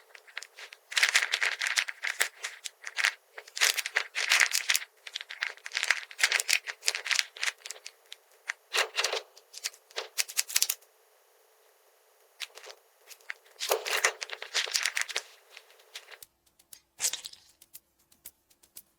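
Small plastic toy pieces and packaging being handled: bursts of rapid clicking, rattling and rustling, with a short pause about two-thirds through and only a few scattered clicks near the end.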